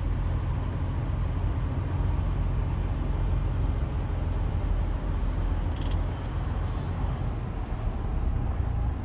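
Semi truck's diesel engine and drivetrain at low speed, heard from inside the cab: a steady low rumble as the truck creeps through a parking lot.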